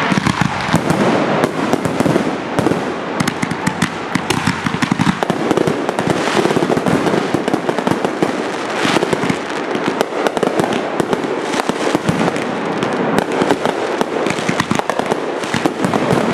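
Fireworks display: aerial shells bursting overhead, with many rapid pops, bangs and crackles overlapping without a pause.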